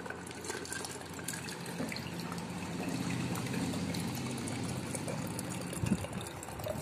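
Tender coconut water trickling out of a small punched hole in the coconut into a plastic cup, a steady pour that grows louder as the cup fills. A single knock near the end.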